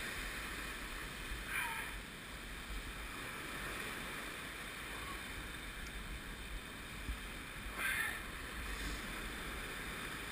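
Ocean surf washing over shoreline rocks, with wind buffeting the microphone as a steady low rumble. Two short higher-pitched sounds stand out, about a second and a half in and again near 8 seconds, the first falling in pitch.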